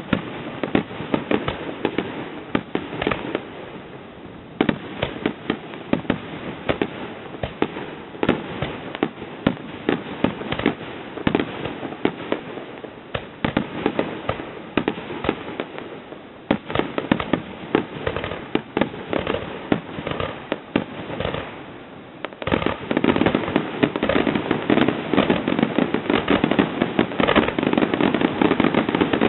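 Aerial fireworks bursting in rapid succession, a steady run of bangs and crackles. About three quarters of the way through they build into a denser, louder barrage of near-continuous bursts. It is heard through a cheap camera's microphone, which loses the top of the sound.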